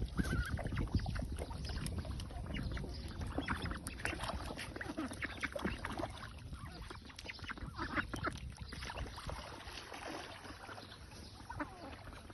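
A group of wild ducks quacking, many short calls overlapping irregularly throughout.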